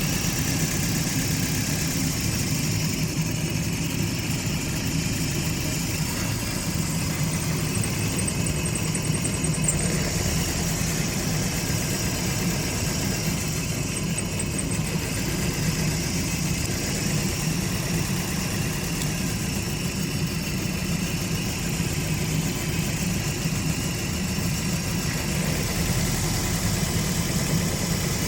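Car engine idling steadily; the engine has a misfire problem.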